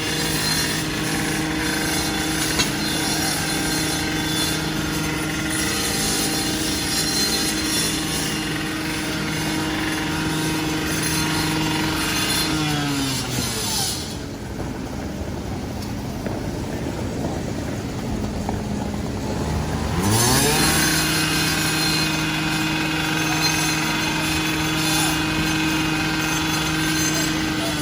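An engine running steadily at high speed winds down about halfway through. About six seconds of rougher noise follow, then it revs back up to the same steady speed.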